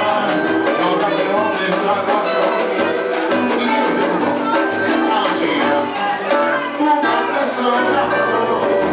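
Latin dance music with singing.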